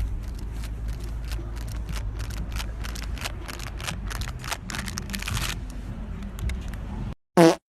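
Rapid, loud sniffing close to the microphone, a quick series of short snuffs over a steady low rumble. Near the end comes one brief, loud pitched cry.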